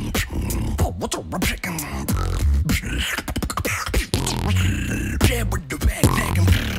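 Beatboxing: a fast, dense solo routine of sharp snare and click sounds over repeated low hummed bass notes, with a few short sung glides.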